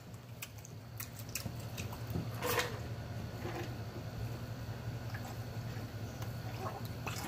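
A man gulping a drink straight from a large glass jar: a run of wet swallows and small clicks, about two a second.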